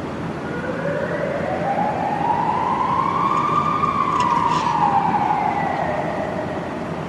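Police siren in wail mode: one slow rise in pitch over about three and a half seconds, peaking about halfway through, then a slow fall, over a steady background hiss.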